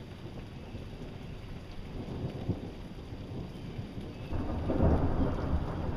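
Steady rain hiss, then a loud thunderclap breaks in about four seconds in and rumbles on to the end.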